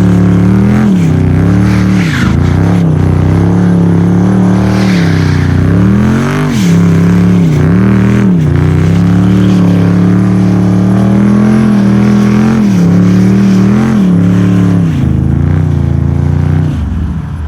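Jeep SRT8's 6.4-litre Hemi V8 held at high revs during donuts and drifting in snow. The pitch drops sharply and climbs back again and again as the throttle is lifted and pressed, and the revs fall away near the end.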